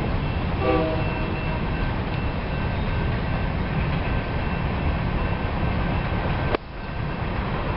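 Diesel freight locomotives approaching slowly with a steady low rumble, mixed with wind on the microphone. A short tone comes under a second in. A sharp click about six and a half seconds in is followed by a brief drop in level.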